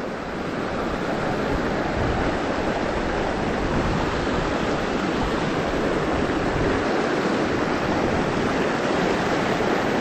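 Creek water rushing steadily over a shallow riffle.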